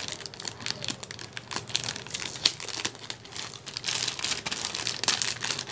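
Thin clear plastic bag crinkling and crackling as a TV remote control is worked out of it by hand, a dense run of small rustles that gets busier about four seconds in.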